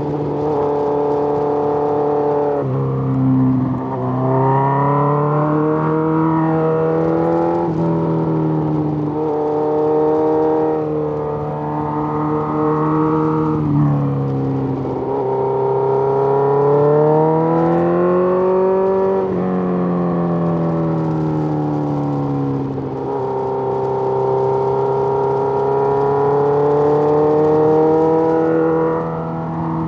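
Suzuki GSX-R1000 inline-four engine running under way at moderate revs. Its pitch climbs gradually and then drops sharply about five times, as at gear changes.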